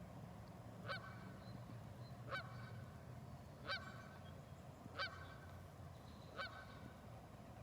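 Canada geese honking: five short, faint honks at an even pace of about one every second and a half, over a low steady rumble.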